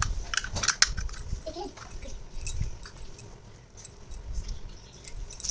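Small plastic toy pieces being handled: scattered clicks and taps, busiest in the first second and again about two and a half seconds in, quieter in between.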